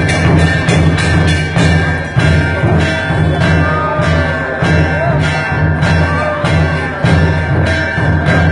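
Music with a steady percussion beat of about two strikes a second over a sustained low drone.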